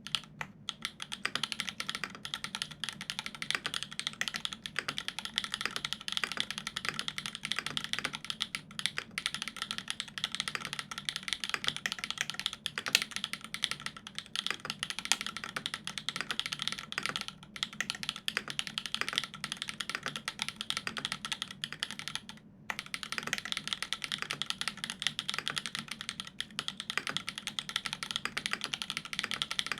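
Continuous fast typing on a Dolumina65 mechanical keyboard with lubed Everglide Dark Jade switches on an aluminium plate and GMK keycaps: dense, quick clacks, with a short pause about three-quarters of the way through.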